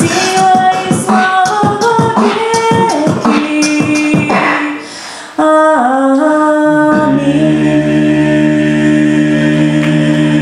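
A woman singing a cappella with a man beatboxing the rhythm into a microphone. About five seconds in, the beat drops out and the singing settles into one long held final note, with a lower voice joining it about two seconds later.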